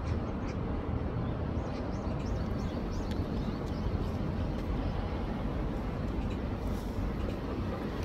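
Steady low rush of a rain-swollen urban stream running high and fast.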